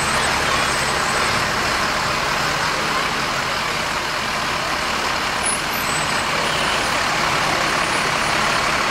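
Fire engines' diesel engines running as the trucks roll slowly past: a steady, even rumble and hiss.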